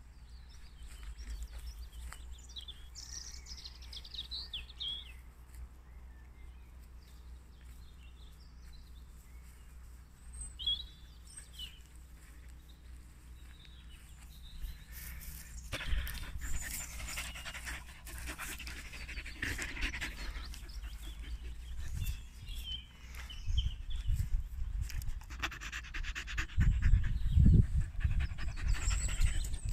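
Kerry blue terrier panting close by, starting about halfway through, with a few bird chirps before it. Near the end there are loud low knocks and rustling as the dog comes right up against the phone.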